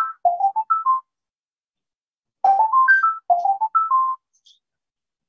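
An incoming-call ringtone: a short melody of clear electronic notes climbing step by step, then dropping back and climbing again, repeating about every three seconds.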